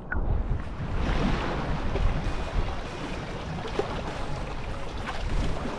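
Ocean surf washing on the shore, with wind rumbling on the microphone. It is a steady noise, heaviest in the low end, that starts abruptly at the start.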